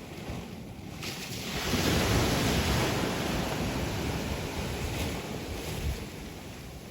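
Sea waves breaking on the shore: a wave surges in about a second and a half in, then its wash slowly fades. Wind rumbles on the microphone.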